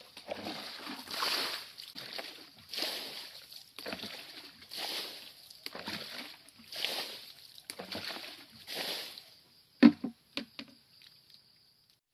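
Rubber boots sloshing and splashing through shallow muddy water, one step about every second. About ten seconds in there is a sharp knock and a few small clicks.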